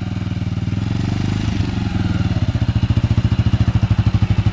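Motorcycle engine running under throttle while the bike is stuck in soft beach sand and being got free. It has a steady, rapid exhaust beat that grows louder and more pulsing over the last second or two.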